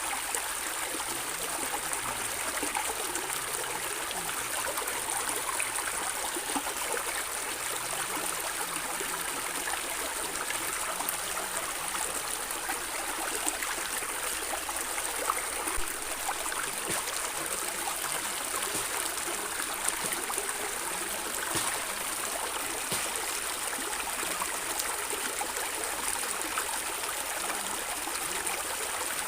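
A stream running steadily over stones, gurgling and trickling, with small splashes scattered through it.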